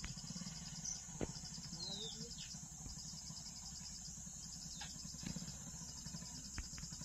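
Insects trilling steadily in a fast, even pulse, with a short falling bird call about two seconds in.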